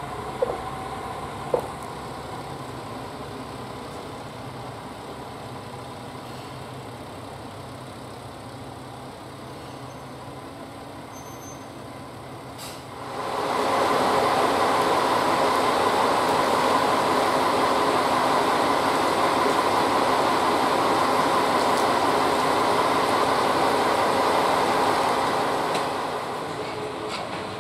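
A diesel railcar's engine is running at a station, quieter at first with two short sharp sounds in the first couple of seconds. From about halfway it is much louder and steady, close by, and it falls away near the end as the railcar pulls off.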